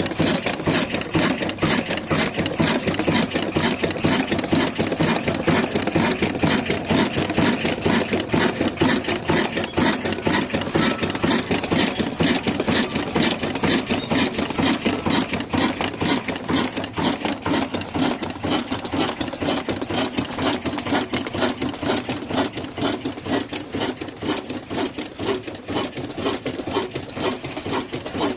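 A 22 HP stationary diesel engine running steadily under load, driving a wheat grinder, with a fast, even beat of knocks. It grows a little quieter in the second half.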